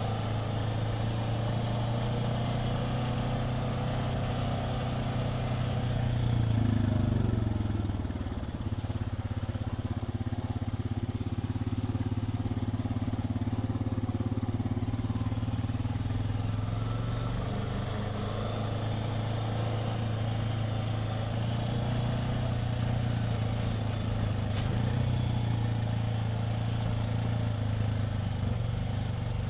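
Side-by-side UTV engine running steadily as the vehicle drives along a dirt trail, heard from inside the cab. The engine revs up briefly about six seconds in, then eases off.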